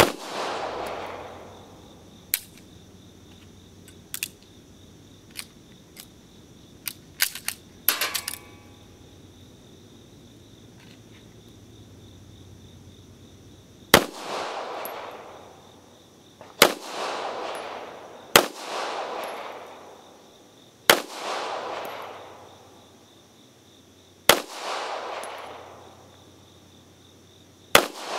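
A Beretta M1951 9mm pistol fires cast-bullet reloads. There is one shot, then after a long pause six more shots about two to three seconds apart, each a sharp crack with a short fading echo. In the pause there are a few lighter clicks and knocks.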